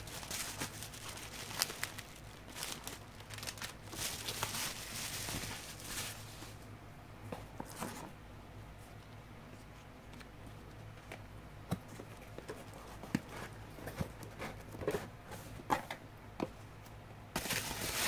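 Smartwatch packaging handled by hand: bursts of rustling in the first few seconds and again near the end, with scattered light clicks and taps in between.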